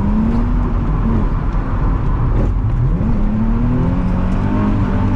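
Drift car's engine running under throttle, its pitch dropping about two and a half seconds in, then climbing again as it revs back up.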